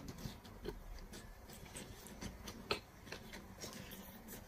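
Close-miked eating of a chicken leg: a bite, then chewing with small wet mouth clicks and smacks, one sharper click a little past the middle.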